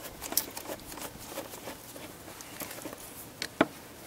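Screwdriver turning a long screw out of a plastic air filter housing: a string of small ticks and scrapes, with one sharper click about three and a half seconds in.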